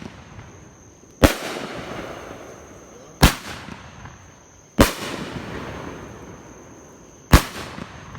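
Consumer fireworks going off: four sharp bangs, irregularly spaced about one and a half to two and a half seconds apart, each followed by a fading hiss.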